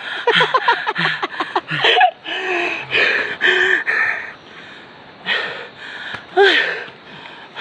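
A man gasping and breathing hard in loud, breathy gasps, out of breath from a steep uphill climb.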